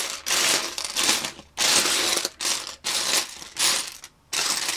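Loose plastic Lego bricks clattering as hands rummage through a pile of them, in about six short rattling bursts with brief gaps between.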